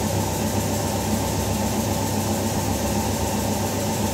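A motor running steadily with a constant low hum, unchanging throughout.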